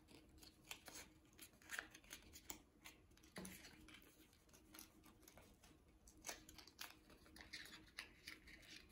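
Faint, irregular snips of scissors making short cuts in the base of a paper-plate ear to fringe it for gluing, with light paper handling in between.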